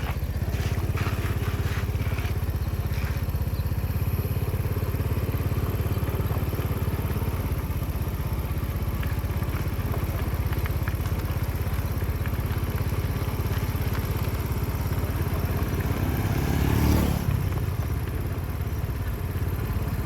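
Engine running steadily with a low drone, briefly growing louder near the end.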